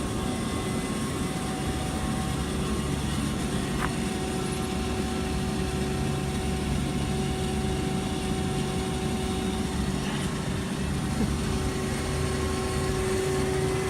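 Steady engine drone at idle, a low rumble with a constant whine that holds one pitch throughout.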